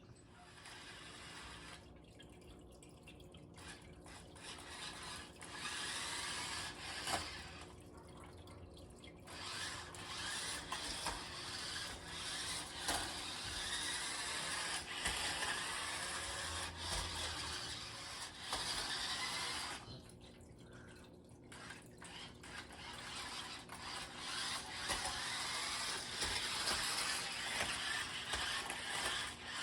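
Toy RC stunt car's small electric motors and wheels whirring as it drives. It stops and starts again a few times.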